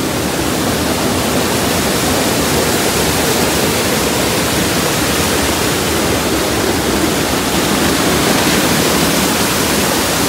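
Heavy rain pouring down, mixed with the rush of a hill stream in flood, making a loud, steady hiss.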